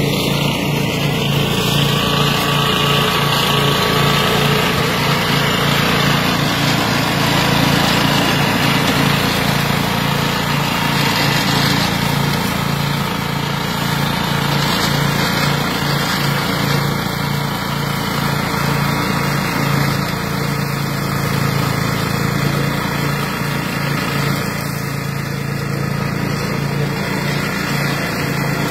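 Engine-driven flail mower running steadily, with a continuous pulsing engine note under a wash of mechanical noise.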